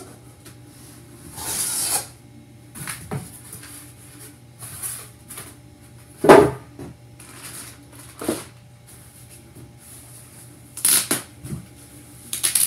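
Cardboard box and packing material handled during unboxing: irregular rustling and scraping with scattered knocks, and a louder thump about six seconds in.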